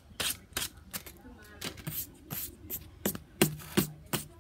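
Irregular clicks, knocks and rubbing from a phone being handled and turned about close to its microphone.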